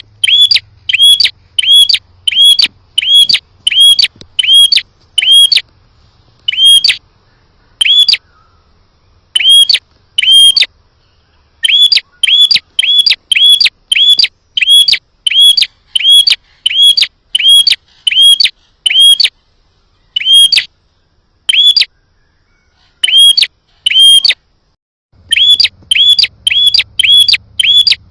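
Prenjak (prinia) calling: a loud, sharp chirp repeated about one and a half times a second, in runs broken by short pauses.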